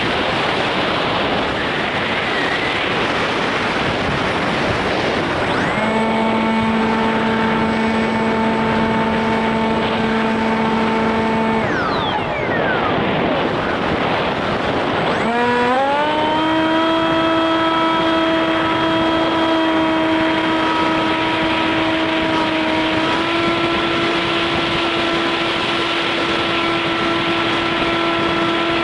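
Onboard sound of a foam RC plane in flight: a steady rush of wind on the microphone, with the motor and propeller whine coming in at a steady pitch about six seconds in. The whine drops away around twelve seconds, then comes back rising to a higher steady pitch and steps up slightly again past the middle.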